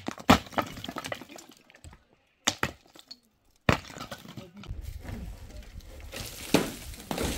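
Sharp cracks and crashes of debris breaking and falling during the demolition of a stone-walled house with a wooden-beam roof, several separate impacts with pauses between them. A low steady rumble follows, with another knock near the end.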